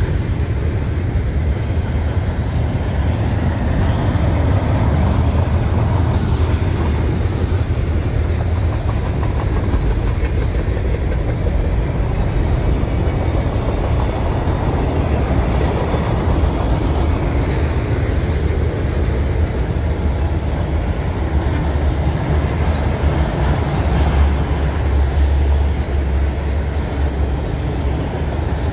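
CN freight train's cars rolling past at steady speed: a continuous rumble of steel wheels on the rails as double-stack container cars and then autorack cars go by.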